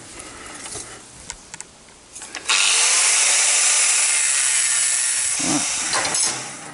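Angle grinder trimming the end of a 10 mm steel rod clamped in a vise. After a few faint clicks, the grinder cuts into the steel about two and a half seconds in with a loud, steady hiss, then tails off and stops about a second before the end.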